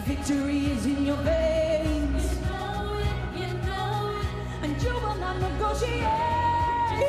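A female pop vocalist singing live into a handheld microphone, backed by a band with a steady low bass. Near the end she holds one long, higher note.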